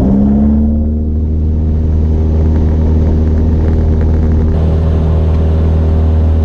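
Cessna 172S's four-cylinder Lycoming engine and propeller running at takeoff power during the ground roll, heard from inside the cockpit. The pitch rises slightly at the very start, then holds steady.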